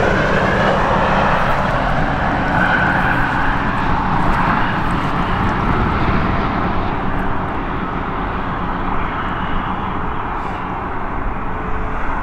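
Road traffic crossing the highway bridge over the river: a steady rush of tyre and engine noise with a low hum, swelling slightly a few seconds in and again near the end as vehicles pass.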